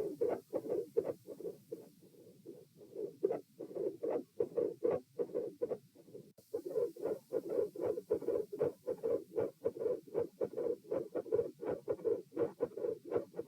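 Heart sounds recorded at the chest: a fast run of repeated heartbeat thuds in lub-dub pairs. They grow softer for a couple of seconds, then there is a sudden break about six seconds in, and a new stretch of beats follows.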